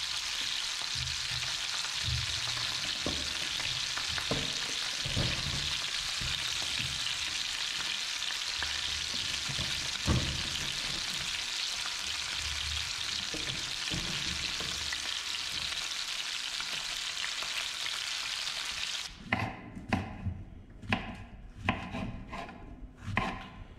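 Steady sizzle of fish frying in hot oil on the stove, with a few soft knocks. About 19 seconds in it cuts off, and a knife slicing mushrooms on a wooden cutting board gives a run of sharp chops, about two a second.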